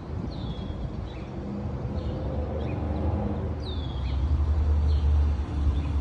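Chickadees calling: two clear whistled notes that slide downward, about three seconds apart, with a few short faint chips between them. A steady low rumble underlies them and is the loudest sound.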